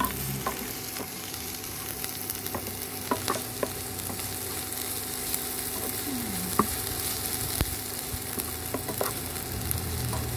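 Crushed garlic and chili sizzling in hot oil in a nonstick frying pan, the garlic being fried until it turns slightly golden. A plastic slotted spatula stirs them, clicking and scraping against the pan now and then.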